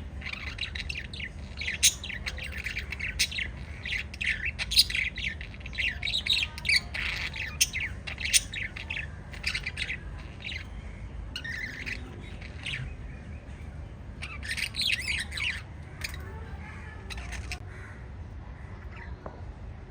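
Small pet parrots chirping and squawking in quick, overlapping calls. They are busiest in the first half, then thin out, with a fresh burst about three-quarters of the way through, over a steady low hum.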